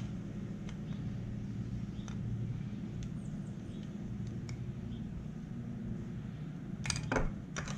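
Light clicks and taps of a rubber hose and small fittings being worked onto a Honda Magna 750 carburetor bank by hand, over a steady low hum. A quick cluster of sharper clicks comes near the end.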